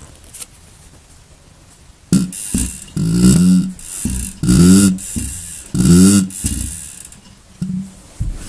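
Quincy model 325 air compressor pump turned over slowly by hand, each stroke pushing air through the valves with a wheezing, honking hiss; four pulses about a second apart, starting about two seconds in.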